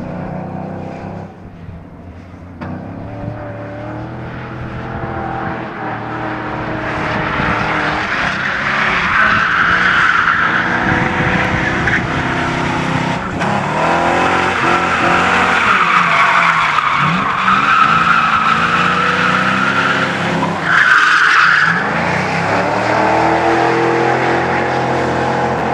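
Ford Mustang drifting: its engine revs rise and fall while the rear tyres squeal and skid. The squeal grows louder from about eight seconds in.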